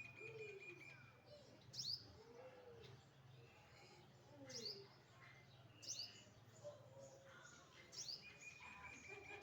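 Small birds chirping faintly: short, sharp, high chirps that drop in pitch, repeated every second or two. A short, even trill comes near the end, and a few soft lower notes run underneath.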